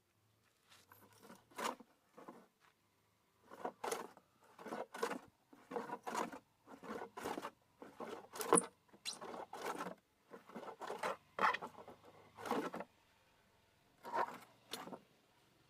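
A run of short, irregular scraping strokes on wood, about one or two a second, with a pause near the end before two last strokes.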